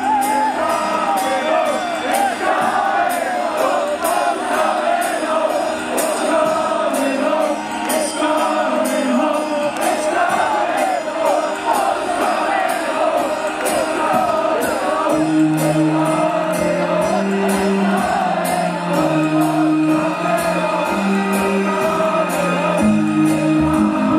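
Crowd singing along loudly with a live rock band over a steady drum beat. The bass guitar comes back in about fifteen seconds in.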